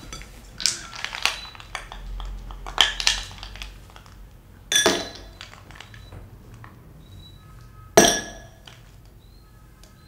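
Ice cubes dropped one by one into a cut-glass tumbler: about half a dozen sharp glassy clinks spread out over the stretch. The loudest comes near the end and rings briefly.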